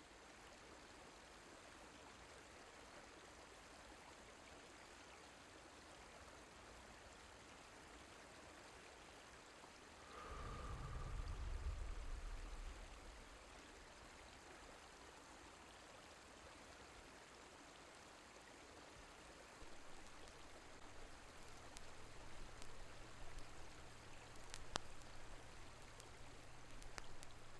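Near silence with a faint steady hiss. About ten seconds in, a low rumble swells and fades over about three seconds. From about twenty seconds a faint low hum comes in under soft, uneven background noise.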